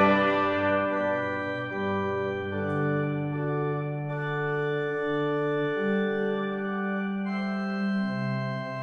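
Viscount digital organ playing a slow passage of sustained chords, the notes changing every second or so.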